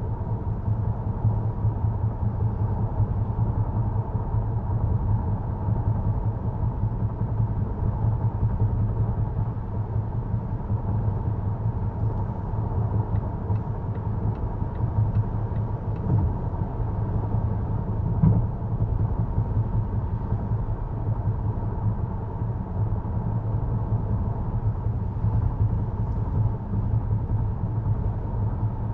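Tyre and road noise inside the cabin of a 2023 Volvo XC90 B5 driving over rough pavement: a steady low rumble. A light thump comes about two-thirds of the way through.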